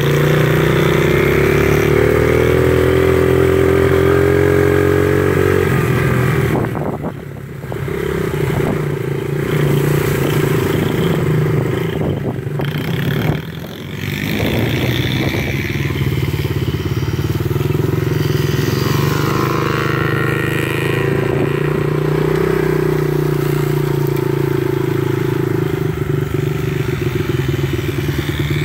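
Yamaha 50 cc youth dirt bike engine running under throttle, its pitch climbing over the first few seconds. The throttle eases off briefly about seven seconds in and again around thirteen seconds, then the engine holds a fairly steady pitch.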